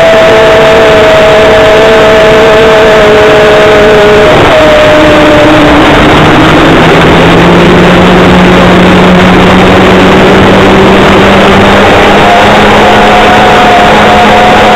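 Model airplane's OS .55AX two-stroke glow engine running, heard from the wing with heavy wind rush over the microphone. About four to five seconds in the engine note drops as the throttle is eased back for a landing approach. It runs lower for several seconds, then rises again near the end as power comes back on to go around.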